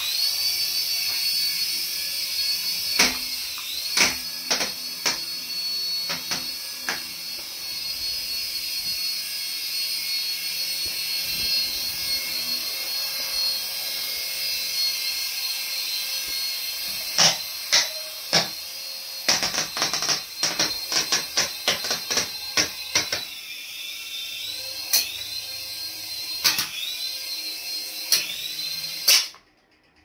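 Small toy RC helicopter's electric rotor motors whining at a high pitch, the pitch rising and dipping with the throttle. A run of quick clattering knocks comes through the middle, and the sound cuts off abruptly near the end.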